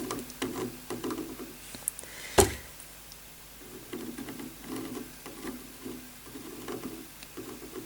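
Faint, irregular rubbing and scraping from hand work on the motherboard and socket, with one sharp click about two and a half seconds in.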